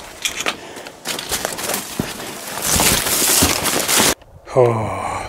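Brush and branches rustling and crackling against clothing and gear as someone pushes through thick brush on foot, for about four seconds. It cuts off suddenly, and a man lets out a short drawn-out 'ohh' falling in pitch.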